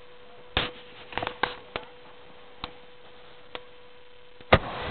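Fireworks going off: a string of sharp bangs and cracks, several close together about a second in, then scattered single pops, and the loudest bang near the end followed by brief crackling.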